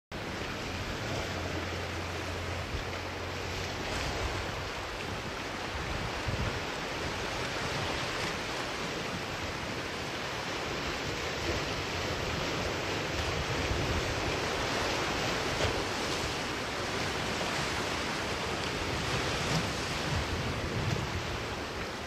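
Sea waves washing steadily onto a rocky shore, with gusts of wind rumbling on the microphone now and then.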